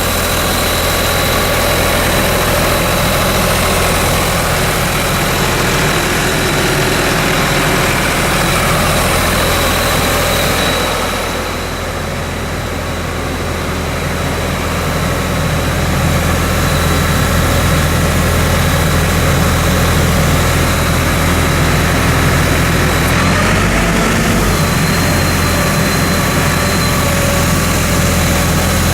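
Ingersoll Rand P175 portable air compressor's John Deere diesel engine running steadily, with a constant high whine over it. The sound drops a little for a few seconds around the middle, and the engine note shifts about 23 seconds in.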